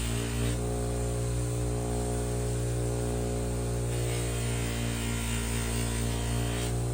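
Electric power tool motor running steadily with a strong, even hum. A hissy noise on top drops away for about three seconds, starting half a second in.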